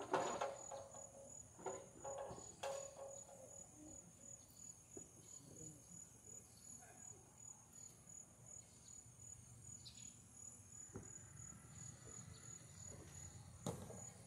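Crickets chirping steadily in a faint, high, pulsing trill. A few knocks sound in the first three seconds, the loudest right at the start, and another comes near the end.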